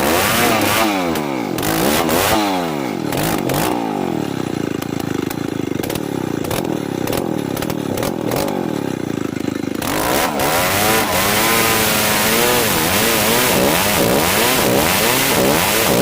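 Old chainsaw ripping dry merbau hardwood, its engine revving up and down. From about three to ten seconds in it holds a steadier, lower pitch with small clicks, then revs up and down again with more hiss until the end.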